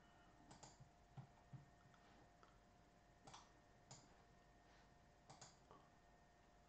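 Near silence broken by a few faint, irregular clicks at a desk computer, as keys or a mouse are worked.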